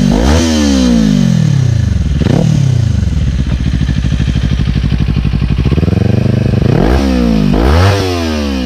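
Kawasaki Ninja 400 parallel-twin engine through an Akrapovič exhaust, revved in quick throttle blips that drop back to a pulsing idle. There is another blip about two seconds in, and two rising revs near the end.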